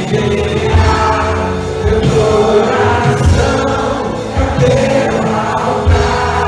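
Choir singing a religious song over instrumental backing, with a low bass line that changes note about once a second.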